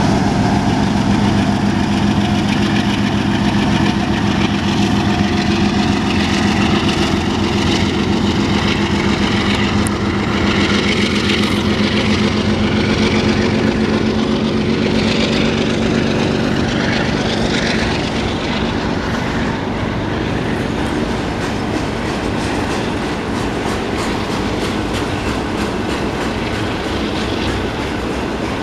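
Union Pacific intermodal freight train rolling past, its diesel locomotives' engines giving a steady low drone. The drone fades after about two-thirds of the way through, leaving the container cars' wheels clicking over the rail joints.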